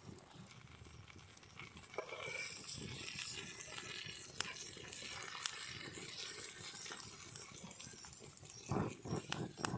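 Banana-leaf-wrapped fish sizzling in coconut oil on an iron griddle over a wood fire, with scattered sharp crackles. Near the end come a few louder scrapes and knocks as a metal spatula lifts the parcel off the griddle.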